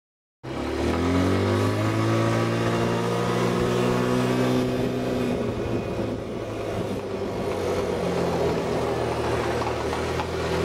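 A motor engine running: after a brief dropout at the start it comes in with its pitch rising, then holds a steady hum.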